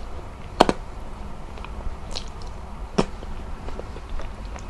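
A person eating with her fingers close to the microphone: wet chewing and mouth clicks as she eats rice and boiled egg, with two sharp smacks, about half a second in and again about three seconds in.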